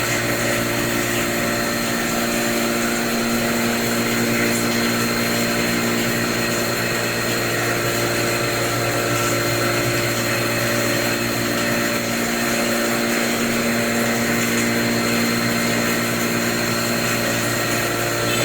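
Vertical machining centre (VMC) running steadily while machining, a continuous machine hum with several held tones and a high whine, unchanging throughout.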